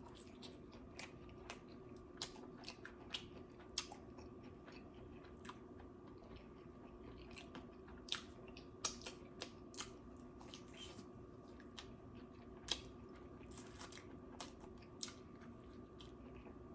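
A person chewing food with irregular small wet clicks and crunches, over a faint steady hum.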